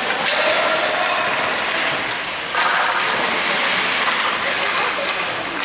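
Ice hockey rink game noise: a steady wash of spectators' voices and skating noise, which swells suddenly about two and a half seconds in.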